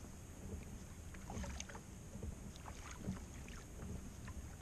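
Faint water lapping against a kayak hull on a calm sea: small, irregular ticks and splashes over a low, steady rumble.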